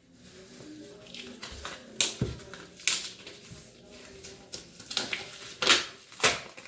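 A shipping box being opened by hand: a scattered series of sharp clicks, snaps and scrapes of cardboard and packaging, loudest about two seconds in and near the end.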